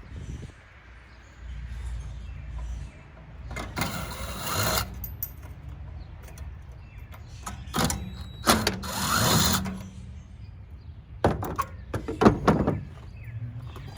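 A power tool runs in several short bursts, each about a second or less, with sharp clicks and knocks between them.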